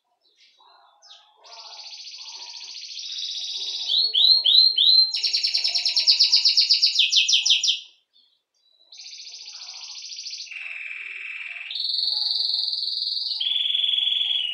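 Belgian canary singing: long trilled rolls of fast repeated notes, each held for a second or two before switching to a new, higher or lower trill. It sings for about six seconds, pauses for about a second, then starts again.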